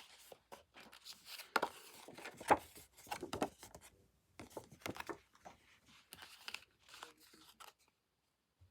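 Paper and plastic album packaging being handled: irregular crinkling, rustling and tearing strokes as the album's contents are pulled out, stopping near the end.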